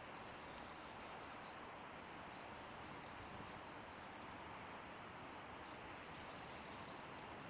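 Steady rushing of a fast-flowing river below, an even hiss with faint high chirps over it now and then.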